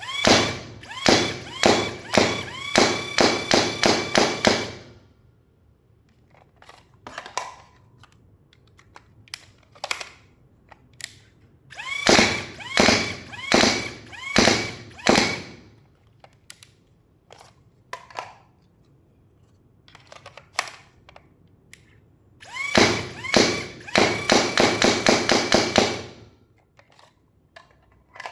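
Battery-powered AIT Lightning foam dart blaster firing darts in three rapid volleys of sharp shots, with a short rising whine on each shot. Scattered clicks between the volleys from magazines being swapped.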